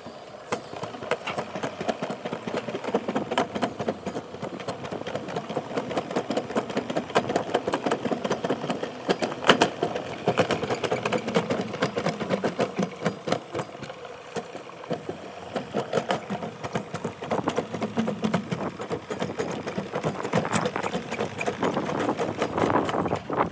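Summer toboggan sled running fast down a stainless-steel trough, a continuous rattle of rapid clicks and knocks as it passes over the track joints and curves.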